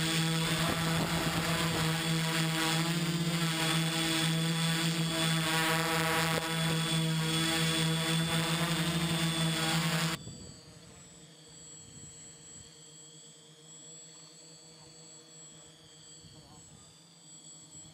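XAircraft X650 V4 quadcopter's electric motors and propellers, recorded by the GoPro on board: a loud, steady hum with several fixed tones. About ten seconds in it cuts to the same quadcopter heard from the shore, a much fainter hum as it hovers low over the water.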